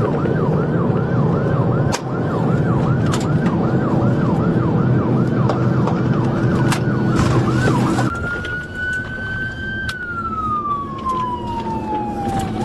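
Police car siren on yelp, fast rising-and-falling sweeps about two and a half times a second, switching about 8 s in to a slow wail that rises and then falls. It sits over loud engine and road noise from the pursuing patrol car, which eases when the siren changes, with a few sharp clicks.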